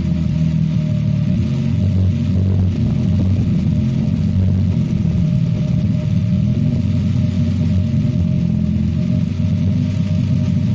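Chicago Electric hammer drill running steadily while boring into solid rock, with a loud, continuous low mechanical drone. The test shows it making only about half an inch of progress in five minutes.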